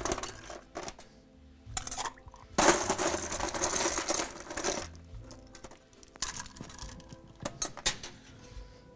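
Ice cubes scooped and dropped into a stainless steel cocktail shaker tin, clattering and rattling against the metal in several bursts, the longest lasting about two seconds in the middle.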